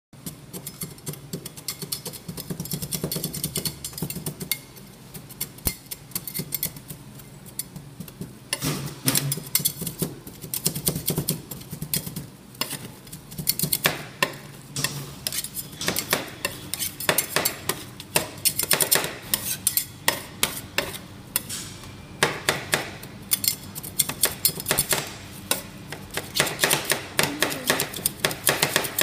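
Metal spatulas chopping and tapping fast on a frozen metal ice-cream plate, mashing cookie pieces into the cream: a rapid clatter of metal-on-metal strikes that becomes busier and louder about eight seconds in.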